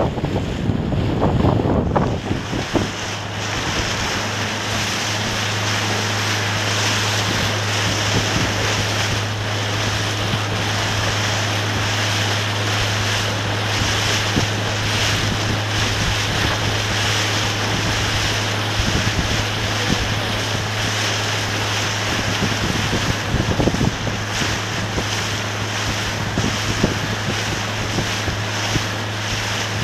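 Wind buffeting the microphone over the rush and splash of water, with a steady low hum that comes in about two and a half seconds in.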